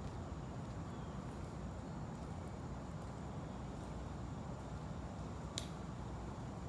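Steady low outdoor background rumble with a hushed crowd, and one sharp click about five and a half seconds in.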